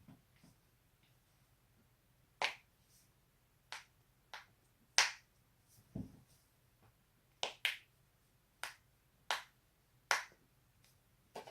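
A person cracking their own neck and back joints: about ten sharp pops at irregular intervals, some in quick pairs, with one duller thud about six seconds in.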